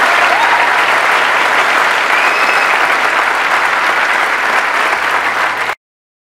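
Large audience clapping steadily, then the applause cuts off suddenly near the end.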